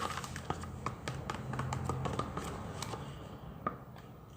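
Slime being stirred in a container with a utensil: irregular light clicks and taps against the sides, growing fainter toward the end.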